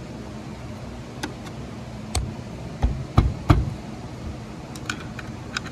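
Sharp metal clicks and knocks, about ten in all, the loudest bunched in the middle, as small steel parts of a Honda Pioneer 1000 sub-transmission are handled and fitted against the case during reassembly. A steady low hum runs underneath.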